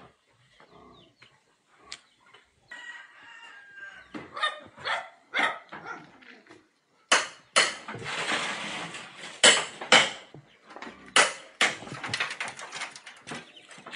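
A rooster crowing once, about three seconds in, among irregular sharp knocks and bangs. The knocks come thicker and louder in the second half.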